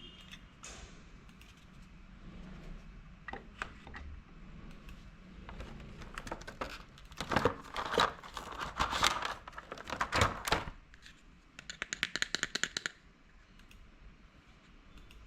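Small plastic toys and packaging being handled: scattered clicks and crinkling, thickening in the middle, then a quick rattling run of ticks lasting about a second and a half.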